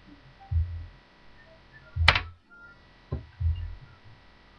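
Handling noise on a webcam microphone: a few dull thumps as objects are moved in front of it, with one sharp click about two seconds in, the loudest, and a smaller click a second later.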